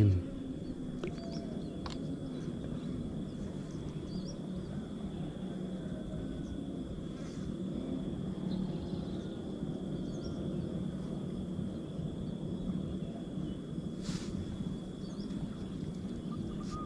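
Steady outdoor background noise: a low, even rumble with a faint constant high-pitched whine over it.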